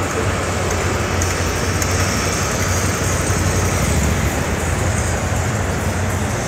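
Motorcycle engine running at low speed as the bike rides slowly past close by, loudest about four seconds in, over a steady din from a busy exhibition hall.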